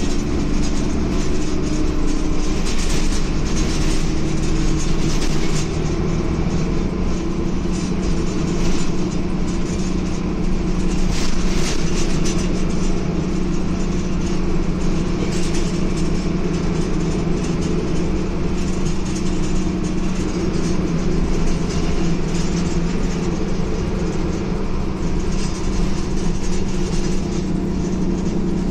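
Inside an Ikarus E94.53 bus under way: the diesel engine's steady drone mixed with road and tyre noise, with occasional short rattles from the cabin fittings.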